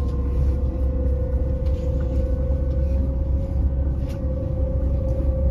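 Electric Öresundståg train running, heard from inside the carriage: a steady low rumble with a whine that slowly rises in pitch, and a few faint clicks.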